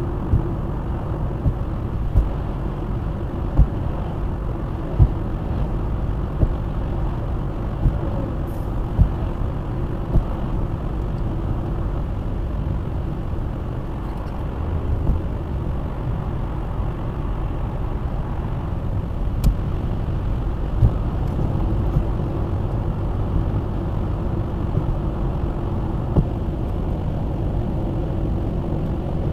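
Road noise of a car driving on a motorway, picked up by a dashcam: a steady low rumble of tyres and engine. Short thumps come about every second and a half through the first ten seconds, then more sparsely.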